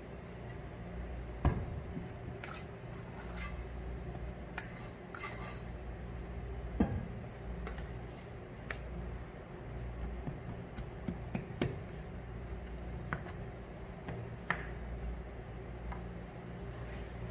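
Clatter and knocks of a stainless steel mixing bowl as dough is tipped out onto the counter, then scattered small taps and scrapes as the dough is floured and cut with a dough scraper. Two sharper knocks come about a second and a half and seven seconds in, over a steady low hum.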